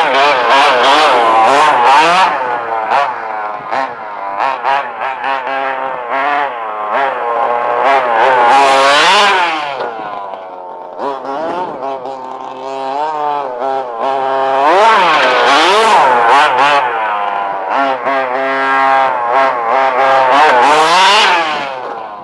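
HPI Baja 5B RC buggy's small two-stroke petrol engine revving up and down over and over, climbing to a high, buzzing whine twice, with a quieter, lower-revving spell in between.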